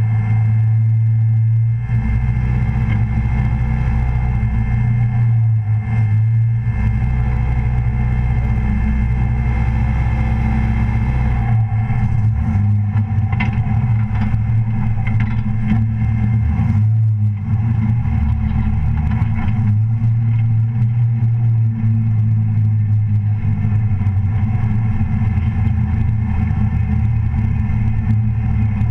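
Race car engine idling and running at low speed, heard from onboard: a steady low drone whose level shifts a few times as the throttle changes.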